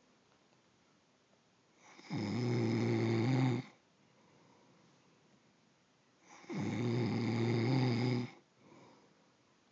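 A man snoring: two long, loud snores about four and a half seconds apart, each a steady low buzz lasting about a second and a half, with quiet breathing in between.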